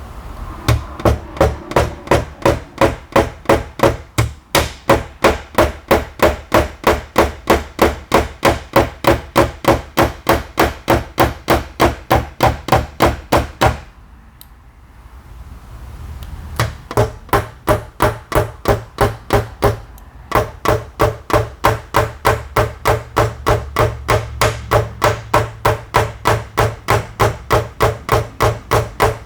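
Fast, evenly spaced hammer taps, about three a second, in paintless dent repair of an aluminum liftgate. The taps break off for a couple of seconds about halfway through, then resume at the same pace.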